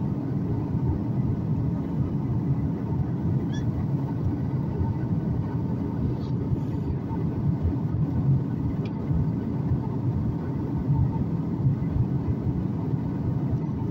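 Steady cabin noise inside a Boeing 737 MAX 9 on descent: the CFM LEAP-1B engines and the airflow past the fuselage make an even, low rush with a faint steady hum above it.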